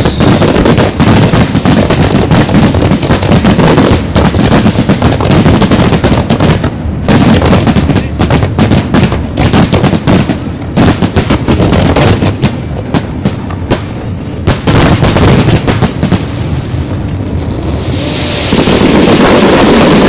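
Fireworks display in a dense barrage of bangs and crackling bursts, very loud, easing off into a few brief lulls along the way.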